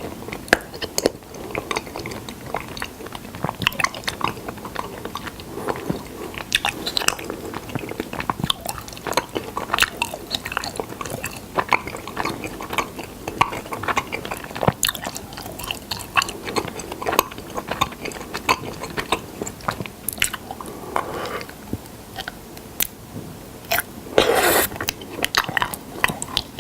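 Close-miked biting and chewing of honey: a steady run of short, sticky clicks and mouth smacks, with one louder, longer bite about 24 seconds in.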